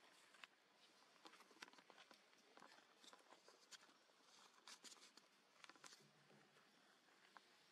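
Near silence, with faint scattered clicks and rustles.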